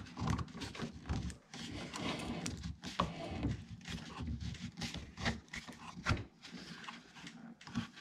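A 4-inch rubber RC tire being worked by hand over a 3D-printed plastic cone onto its wheel rim. Irregular rubbing and handling noise, with scattered small clicks as the rubber and plastic shift.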